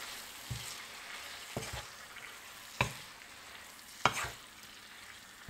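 Shrimp and vegetables sizzling in a nonstick wok while a wooden spatula stirs them. The spatula knocks against the pan about four times, the loudest knock about four seconds in.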